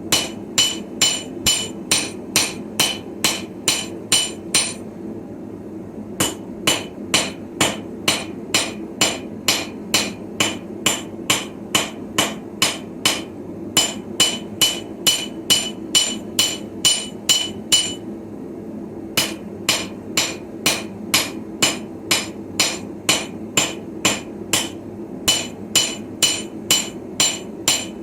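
Hand hammer striking hot steel on a small Viking-style anvil while forging a sickle blade, in runs of steady blows about two to three a second, each with a bright metallic ring. The runs break off briefly three times. A steady low rushing noise continues underneath.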